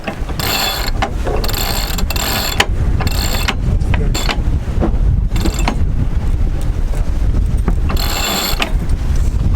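Sailboat sheet winch ratcheting in repeated short bursts as a line is winched in, over steady wind rumble on the microphone.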